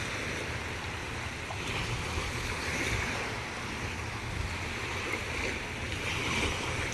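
Steady wash of sea waves on the shore, swelling gently a few times, over a low wind rumble on the microphone.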